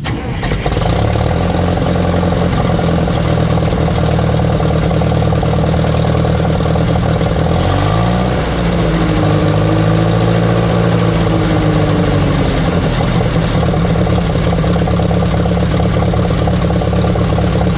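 Massey Ferguson 135's Continental gasoline engine running steadily; about eight seconds in its speed rises briefly, then it settles and runs on at a slightly changed pitch. The owner believes this engine has a vacuum leak, and it needs the choke pulled out slightly to run.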